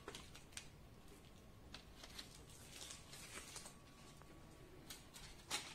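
Faint rustling and crinkling of a paper sticker sheet being handled, a scatter of soft ticks and rustles, with a slightly louder rustle near the end.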